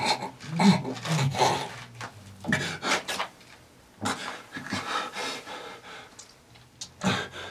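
A man breathing hard in irregular, breathy gasps and pants, with a few low grunts in the first couple of seconds, after a drink has been forced into his mouth.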